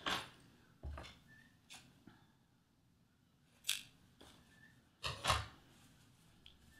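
Scissors cutting crochet yarn: a sharp snip a little past halfway, then a louder knock as the scissors are laid down on the table, with soft handling sounds between.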